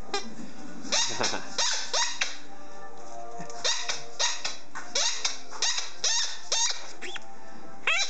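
Rubber squeaky toy ball (JW Pet iSqueak Ball) squeaking over and over as a German Shorthaired Pointer chews it: short, high squeaks a few a second, with a pause of about a second a few seconds in.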